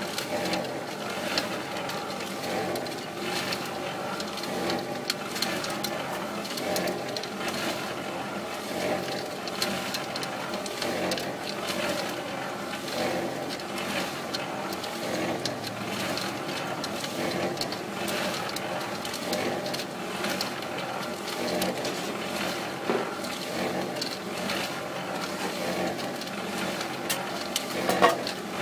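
Small electric cement mixer running, its motor and drum gearing turning steadily while wet concrete and gravel tumble and clatter inside the drum. There is a sharper knock near the end.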